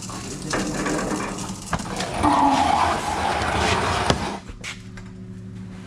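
A steel floor jack being dragged and rolled across the shop's concrete floor, a rough scraping rumble that ends with a clunk about four seconds in.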